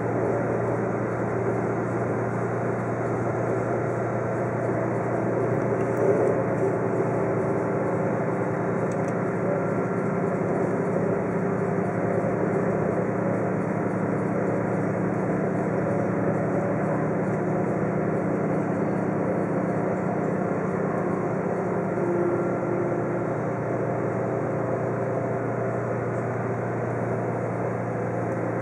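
Diesel local train running steadily, heard from inside the passenger compartment: a continuous low engine hum under the rumbling running noise of the moving train, with one brief louder knock about six seconds in.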